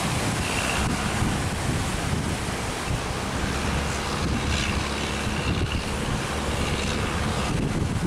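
Surf breaking and wind blowing over the microphone, with a fishing boat's engine running low underneath.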